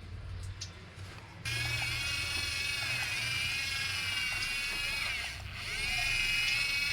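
Small electric gear motors of a remote-control toy machine whining, starting suddenly about a second and a half in, with the pitch dipping and coming back up a couple of times.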